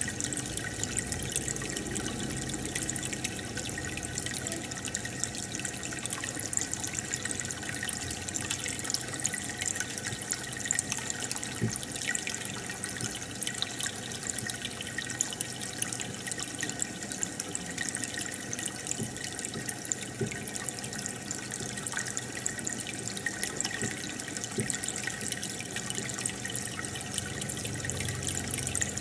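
Aquarium air bubbler and filter: a steady bubbling and trickling of water with fine crackles from the bursting bubbles.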